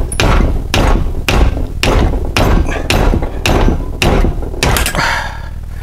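Repeated hammer blows on metal, about two a second, stopping shortly before the end, as a seized, rusted-in seal is driven out of the rear hub.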